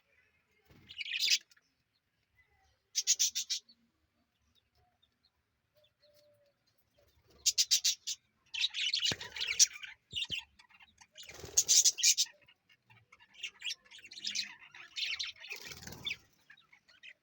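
Budgerigars chirping in short bursts of rapid, stuttering high calls, broken by brief pauses. The bursts come thickest in the middle and toward the end.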